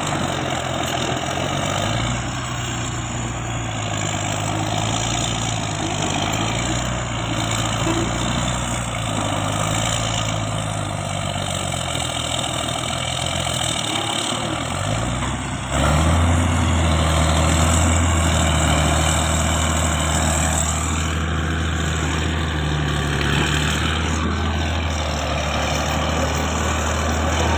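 Heavy diesel engine of a large work vehicle running, with a steady low hum. About halfway through it jumps suddenly louder and then holds steady.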